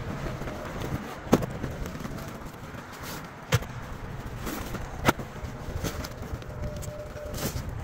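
Spiral notebooks knocking and clattering as they are handled and packed into reusable shopping bags: about four sharp knocks spread a second or two apart over a low background hum.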